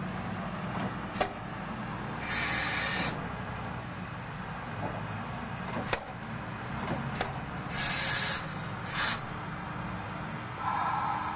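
Two electric railcars being coupled: short bursts of air hissing, three times, with a few sharp metallic clicks over a steady low rumble.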